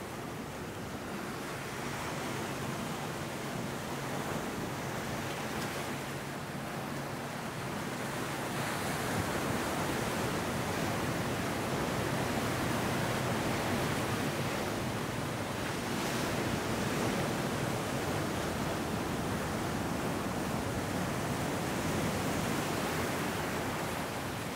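Ocean surf breaking and washing up over sand and boulders, a steady rushing hiss that swells louder about a third of the way in as bigger waves come in.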